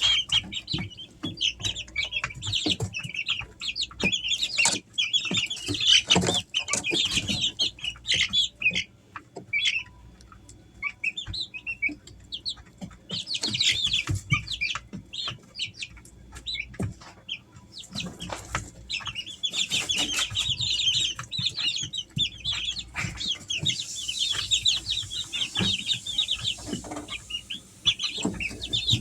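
Three-week-old Easter Egger chicks peeping: many short, high chirps overlapping, with scattered taps. The peeping thins out for a couple of seconds about ten seconds in, then picks up again.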